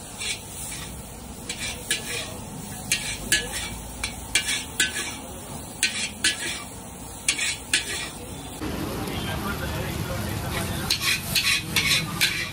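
Metal spatula scraping and clanking against a large steel wok as noodles are stir-fried, at about two strokes a second, over a steady sizzle. The sizzle grows louder about two-thirds of the way through.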